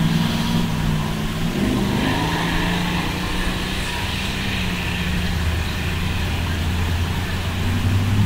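A car engine running at low revs: its note drops over the first couple of seconds, settles into a steady low idle, and picks up again near the end.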